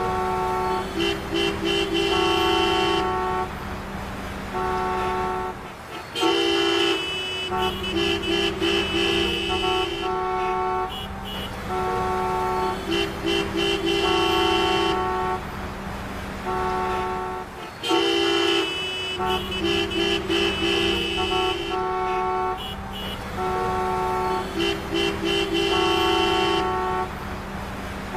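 Traffic jam: many car horns honking at several pitches in short toots and longer blasts over the steady rumble of idling traffic. The same stretch of honking repeats about every twelve seconds.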